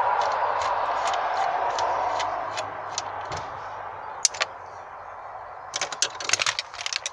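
Ratchet and socket on an extension undoing a 10 mm earthing nut, the ratchet clicking evenly about two to three times a second, then a few sharp metallic clicks and clinks near the end as the nut and socket are handled.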